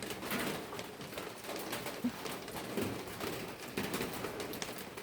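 Light rain pattering in scattered ticks and drips, with a dove cooing now and then.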